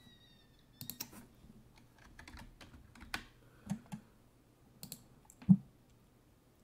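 Scattered, irregular light clicks and taps, like typing, with one louder knock about five and a half seconds in.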